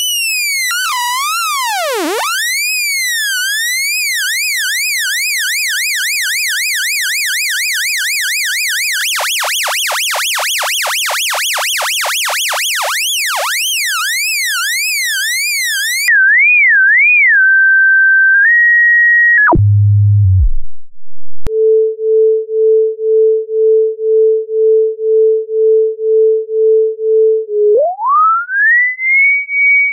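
Computer-synthesized frequency-modulated tone, its pitch wobbling rapidly up and down and changing as the carrier frequency, modulation index and modulation frequency are adjusted, then holding steady briefly. After a short low drone, a 440 Hz amplitude-modulated sine tone pulses in loudness about one and a half times a second, and near the end it slides up in pitch as its carrier frequency is raised.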